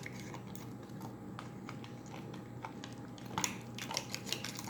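Poopsie slime being kneaded and squeezed by hand: faint, scattered sticky clicks and pops, a little busier about three and a half seconds in.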